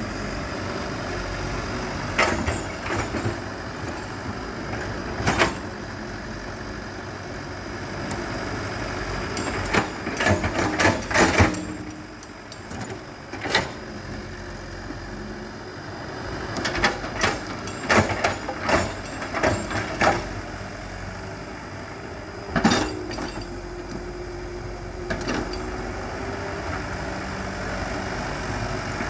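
Excavator's diesel engine running steadily, with repeated clusters of sharp cracks and knocks and a brief whine near the end.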